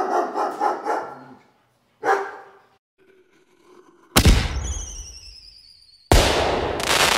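A string of trigger sound effects. A dog barks rapidly for about a second and a half, with another short bark about two seconds in. Then come two sudden loud bangs about two seconds apart: the first is followed by a falling whistle, the second by a quick run of sharp pops.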